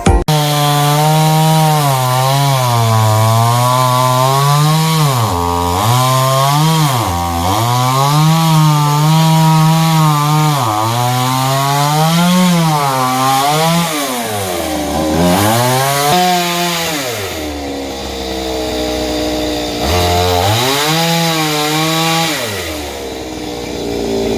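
Two-stroke chainsaw cutting wood. The engine's pitch sags repeatedly as the chain loads up in the cut and climbs again as it frees. Near the end it drops back toward idle.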